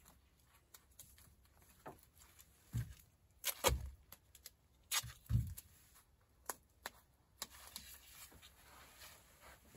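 Scattered knocks, taps and rustles of hands working at a truck camper topper's rear window, fitting foam pipe insulation and Gorilla Tape over its sharp corner. The louder knocks and thumps come between about three and five and a half seconds in.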